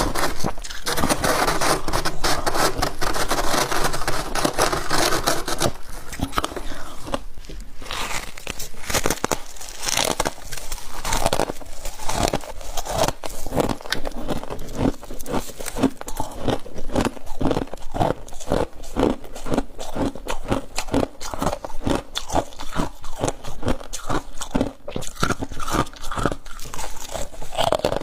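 Close-up crunching and chewing of frost ice: a dense crackling crush for the first several seconds, then a long run of sharp, separate crunches, two or three a second, as the frost is bitten and chewed.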